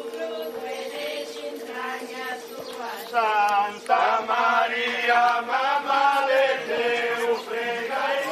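Voices of a religious procession singing a hymn-like chant together, faint at first and much louder from about three seconds in, with long held notes.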